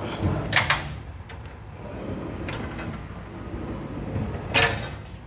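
Drawers of a Harbor Freight tool box being slid open and shut on their runners, with a low scraping rumble and two sharp knocks, about half a second in and near the end.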